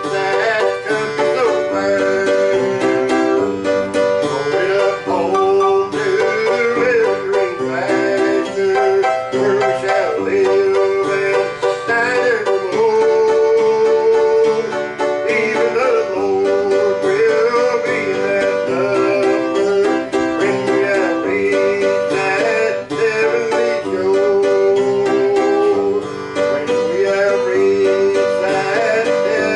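Music played on plucked string instruments, with no words heard.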